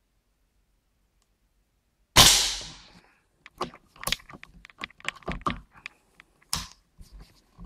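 Crosman AirMagnum 850 CO2 air rifle firing one shot, a sharp report about two seconds in that dies away within a second. It is followed by a string of irregular clicks and knocks as the rifle is handled between shots.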